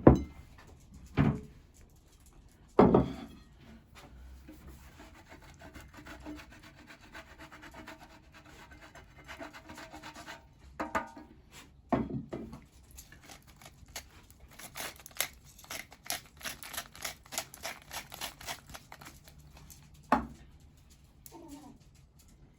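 Kitchen utensils knocking and scraping against a pan and plate while risotto is dished up: a few sharp knocks, with a stretch of quick scraping and clicking in the middle.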